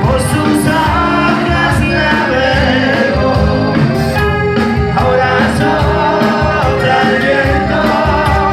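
A band playing a pop-rock song, a passage between sung verses with a steady drum beat under pitched instrumental lines.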